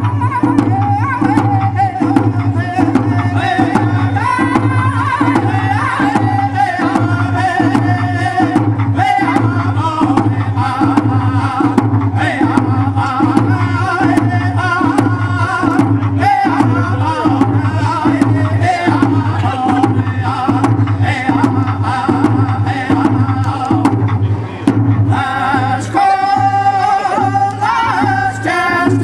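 Three men singing a round dance song together while beating hand-held frame drums in a steady, even beat. The voices come in louder and fuller near the end.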